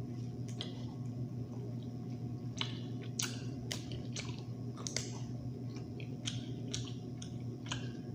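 Close-miked chewing of seafood, with scattered small clicks and crackles throughout, over a steady low hum.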